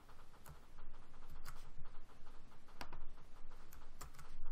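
Scattered clicks of a computer mouse and keyboard, about half a dozen, including the Command-X keystroke near the end, over a low steady room hum.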